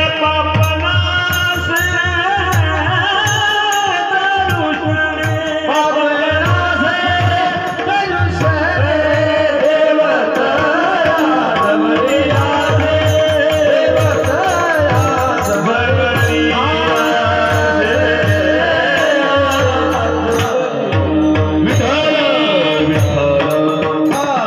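Warkari kirtan singing: a voice carrying a gliding devotional melody over a steady held drone, with a hand drum keeping a regular beat and small cymbals ticking along.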